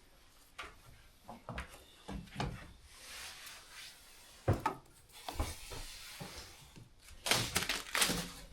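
Scattered knocks and thuds on wood, the loudest about four and a half seconds in, followed near the end by a burst of scraping and clattering, typical of hand demolition work on the timber of an old house.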